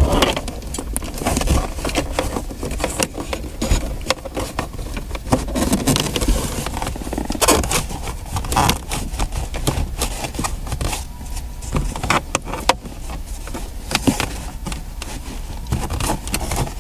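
Handling noise as a cable is routed through a car's dashboard: irregular rustling, scraping and clicking of wiring and plastic parts.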